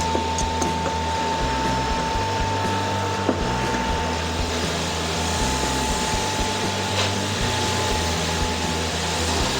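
An electric motor running steadily: a constant whooshing noise with a high, even hum, like a shop vacuum or sander. Background music with a bass line plays underneath.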